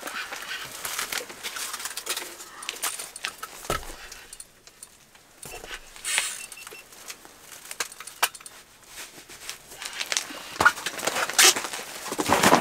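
Rustling of insulated clothing and fishing gear being handled in a small shelter, with scattered clicks and knocks, quieter for a moment about four seconds in and busier near the end.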